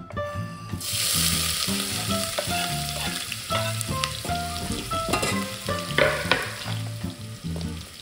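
Chopped onion sizzling in hot olive oil in a stainless steel saucepan. The sizzle starts about a second in as the onion hits the oil and holds steady, under background music.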